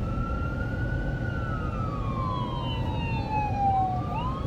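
Emergency vehicle siren wailing: its pitch sweeps up, holds, slides slowly down for about three seconds, then climbs again near the end. Steady road rumble from the moving vehicle runs underneath.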